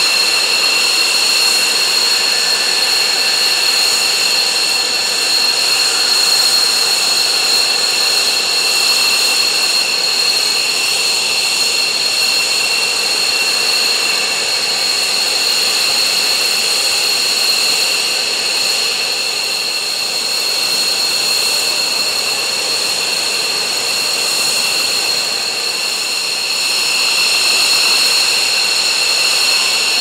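F-4EJ Kai Phantom II's twin J79 turbojets idling on the ramp: a steady, high-pitched whine over a rushing noise, unchanging in pitch.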